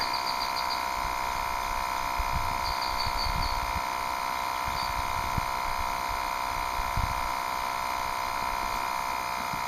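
Slime portable tire-inflator compressor running steadily with an even buzzing hum, filling a large 39.5-inch off-road tire near the end of a five-minute fill, at about 10 psi.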